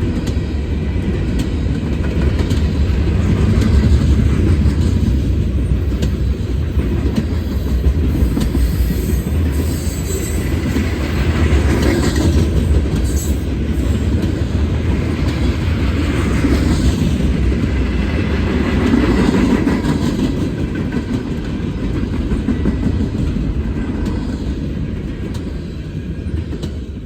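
Freight train cars rolling past with a steady heavy rumble and the clickety-clack of wheels over rail joints, easing off near the end.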